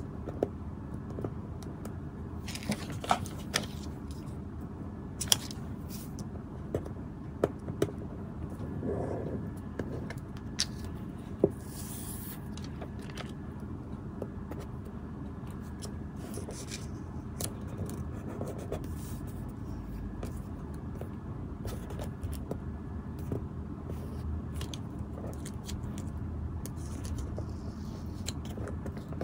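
Hands handling a clear plastic sheet and paper stickers: scattered light clicks and taps with short rustles and crinkles of plastic film and paper, over a steady low background hum.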